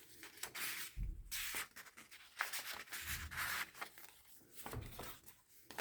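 Paper and card rustling and sliding as handmade journal pages and pockets are handled, with a few soft bumps.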